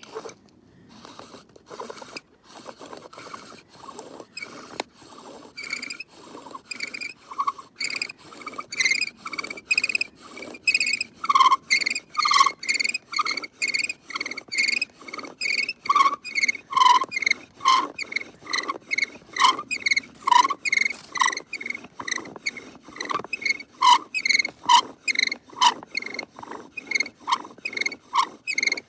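Bow drill worked back and forth, the spindle squeaking in the fireboard notch at about two strokes a second and getting louder after the first few seconds. The drill and board are freshly harvested wood, which the maker suspects still holds moisture.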